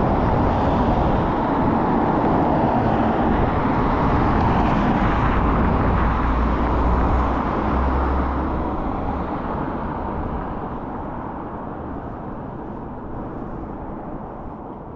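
A road vehicle passing close by, a steady engine and tyre noise with a low rumble that fades away over the second half as it moves off.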